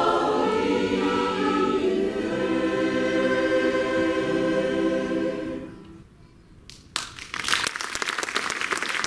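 Mixed choir of men's and women's voices holding the last chord of a song, which dies away a little over halfway through. After a short hush, audience applause breaks out near the end.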